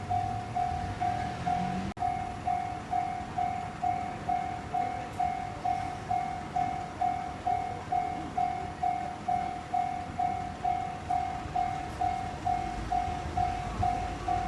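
Railway level-crossing warning bell ringing steadily at about two strikes a second, with train noise underneath that grows into a low rumble near the end.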